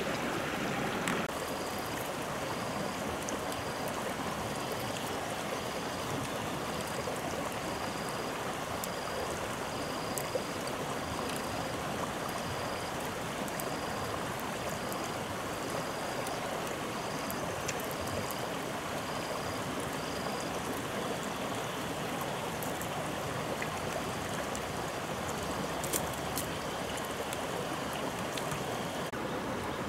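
Steady rushing noise of running water. For the first twenty seconds or so a thin, high chirp repeats about one and a half times a second over it.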